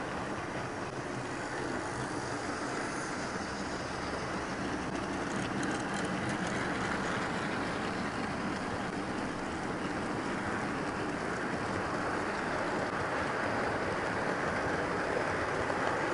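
Model trains running past at close range: a steady rolling rumble of wheels on the track, growing slightly louder toward the end.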